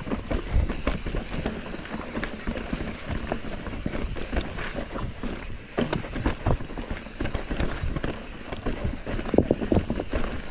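Mountain bike clattering and rattling as it rolls down a rough, rocky trail, with tyres crunching over dirt and stones and wind on the microphone.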